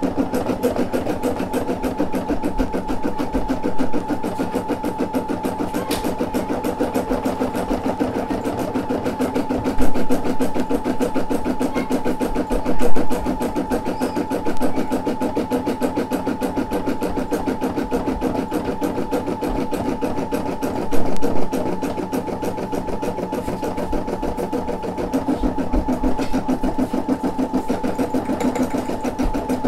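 Brother SE600 embroidery machine stitching a design: a fast, even needle rhythm over a steady motor hum, with a few brief louder bumps along the way.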